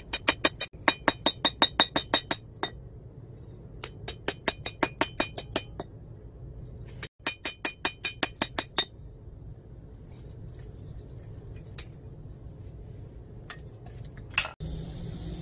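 Hand hammer striking a glowing hot steel knife blank, cut from a motorcycle brake disc, on a steel anvil. The blows ring sharply and come in quick runs of about five a second, with pauses between the runs. Near the end there is one last single strike.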